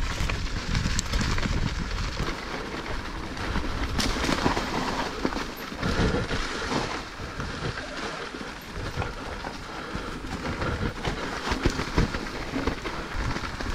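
Mountain bike riding down a rough, rocky trail: a continuous rumble of tyres on loose ground, with the bike rattling and many sharp knocks from hits on rocks and roots.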